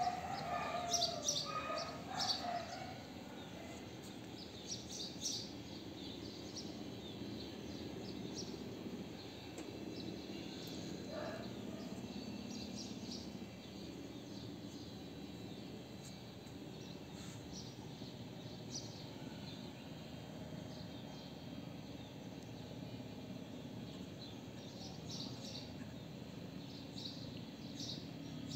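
Outdoor ambience: small birds chirping in short, scattered bursts over a steady low background hum.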